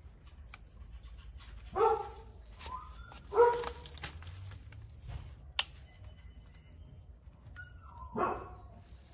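A dog barks three times: short barks about 2 and 3.5 seconds in, and a falling one near the end. A single sharp snip of garden scissors cutting a bean stem comes between them.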